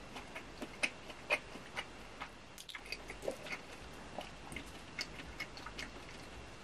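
Close-miked chewing of a breaded fried cheese stick: irregular wet, crisp mouth clicks, loudest about a second in.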